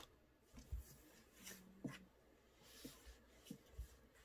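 Near silence with faint rustles and a few soft thumps, as a cat moves about and paws at a cardboard box.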